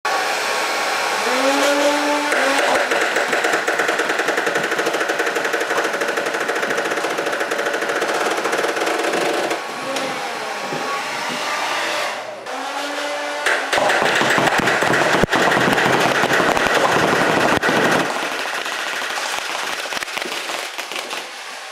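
Nerf Rival Zeus flywheel blaster, modified for full auto on a 2-cell LiPo, firing foam balls in a rapid continuous stream over the steady blowing of a hair dryer that pushes the balls down the feed tube. The flywheel motors whine up in pitch as they spin up a few times, and firing pauses briefly about twelve seconds in before resuming louder.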